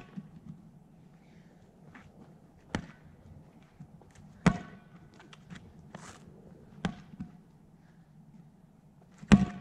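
A ball bouncing on the pavement and being hit back and forth in a game of four square: about five sharp smacks roughly two seconds apart, with lighter taps between them and the loudest smack near the end. A faint low steady hum lies underneath.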